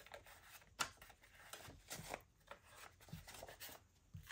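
Faint rustling of paper dollar bills being picked up and handled, with a few soft, crisp ticks spread through.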